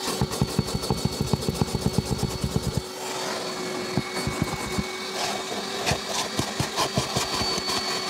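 JPT KVC60 industrial wet-and-dry vacuum cleaner running on one of its two motors with a steady hum. Its crevice nozzle is scrubbed over car floor carpet, giving rapid scraping strokes, about ten a second, for the first three seconds, then scattered clicks.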